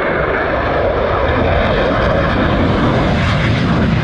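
Loud, steady aircraft engine noise that deepens in the second half.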